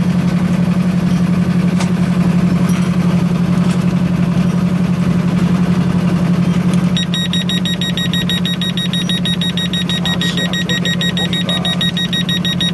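Depth-sounder alarm of a Royal RFA-40 fathometer beeping rapidly in a high-pitched pulsing tone, starting about seven seconds in, over the steady hum of the boat's engine. The alarm signals that the depth has fallen below its 10 m setting.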